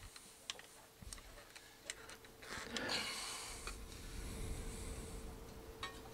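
Scattered light clicks and taps as a stripped wire and a screwdriver are worked at the terminals of a metal AC disconnect box, with a stretch of rustling handling noise in the middle and a faint steady hum underneath.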